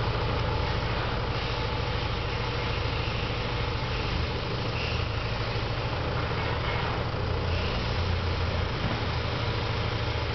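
Tucker Sno-Cat engine running steadily at low revs, growing slightly louder about seven seconds in.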